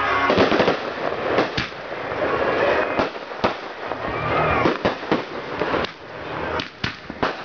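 Aerial fireworks going off in quick succession: many sharp bangs and pops over a dense, continuous crackle.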